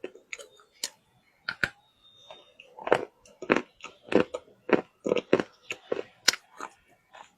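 Close-up chewing of wet loess clay: a run of short, sharp crunches in the mouth, sparse at first, then about two a second over the second half.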